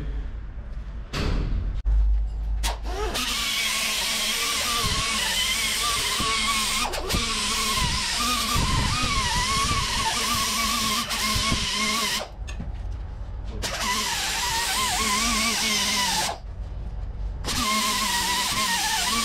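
Air-powered hand grinder run against a metal pipe. Its whine wavers in pitch as it bites, and it stops twice and starts again.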